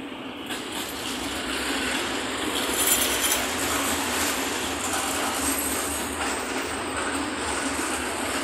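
Freight train of Falns hopper wagons rolling past, a steady noise of steel wheels on rails that grows louder over the first two seconds and then holds.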